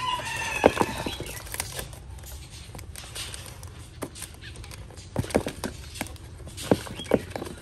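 Bird cage being handled: scattered knocks and clicks with light pattering, and a short bird call right at the start.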